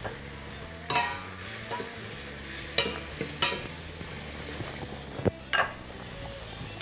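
A whisk stirring a white sauce of milk, butter and flour in a stainless steel pot over the heat, with several sharp metallic clinks of the pot and utensils, the loudest about three seconds in.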